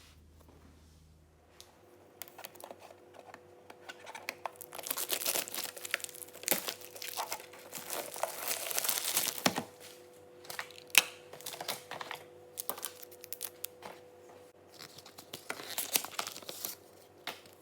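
Packaging being pulled open and handled while a Cricut Joy is unboxed: irregular crinkling and tearing rustles of wrapping, with scattered sharp clicks and knocks.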